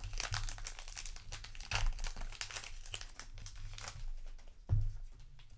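Foil booster pack wrapper crinkling as it is torn open by hand: a run of sharp crackles, loudest about two seconds in and near the end.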